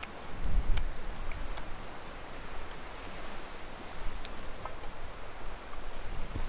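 Open wood campfire crackling, with a scattered handful of sharp pops over a steady hiss. A brief low rumble comes about half a second in.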